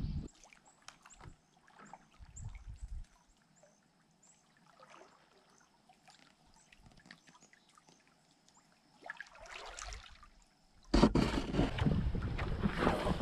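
Canoe being paddled on a lake: quiet paddle dips and water trickling off the blade, with faint clicks. About 11 seconds in, a much louder rush of water and wind on the microphone takes over.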